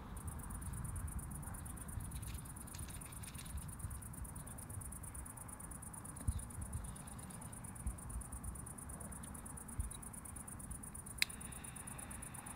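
Quiet outdoor scene with an insect trilling steadily in a fast, even, very high-pitched pulse, over a low rumble of wind and handling. A few faint knocks come from a fireworks mortar tube and shell being handled, and a sharp click is heard near the end.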